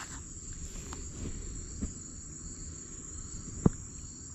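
Steady, high-pitched chirring of insects, with a single sharp click about three and a half seconds in.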